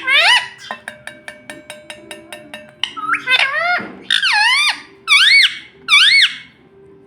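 Parrot calling: a short rising whistle, then about two seconds of rapid, even clicking. After that it gives a run of loud squawks that swoop down and up in pitch.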